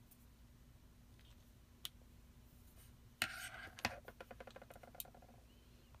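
A light click, then a sudden clatter of a small hard object followed by a rapid run of light ticks, about a dozen a second, fading out over about two seconds.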